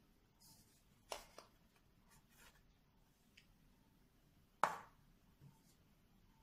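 Quiet handling of bread dough and a greased aluminium baking tin, with two sharp knocks as the tin is handled and set down on the table: one about a second in and a louder one nearly five seconds in.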